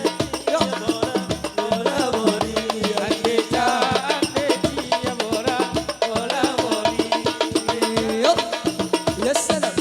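Instrumental break in gambus music: a melody line that bends in pitch, over percussion with a steady beat.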